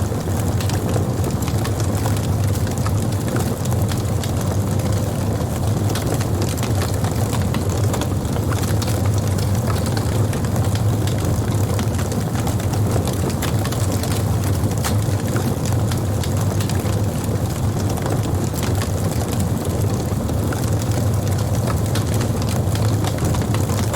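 Wood burning on a campfire: irregular crackles and pops over a steady low rumble of flame.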